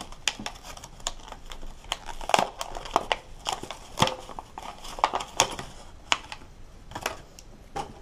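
Flashlight packaging being opened by hand: irregular crinkling and sharp crackles, with a few louder snaps.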